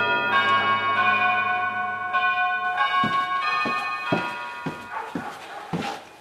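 A slow melody of sustained, ringing bell-like chimes, fading out about halfway through. From about three seconds in, a series of sharp taps comes roughly twice a second.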